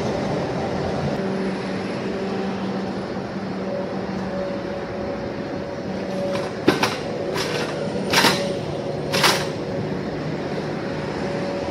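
A steady mechanical drone with a low hum, broken about halfway through by four short metallic clanks as a steel hand truck is handled and wheeled off a loading dock.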